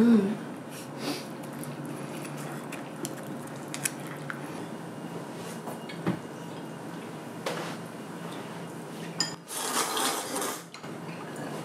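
Chopsticks and a wooden ladle clinking and tapping against ceramic noodle bowls at a table, a few scattered clicks over a low steady hum. There is a sharp knock at the start and about a second of noise near the end.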